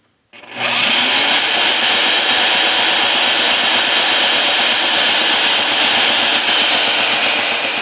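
Craftsman half-inch single-speed electric drill switched on through a light dimmer, starting about half a second in and then running steadily at reduced speed, about 400 RPM, as it turns a bench grinder's shaft and wheel.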